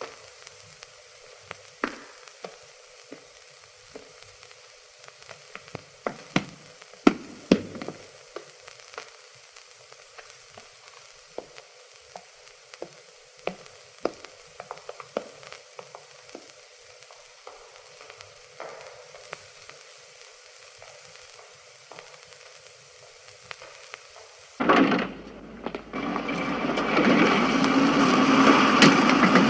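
Steady hiss with irregular crackles and pops from a worn old film soundtrack. About 25 seconds in it gives way to louder music with guitar.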